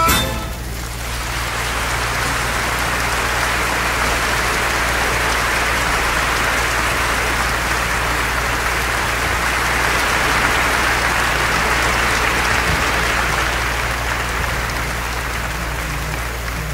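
Heavy rain pouring onto a lake's surface: a steady, dense hiss, with a low steady rumble underneath.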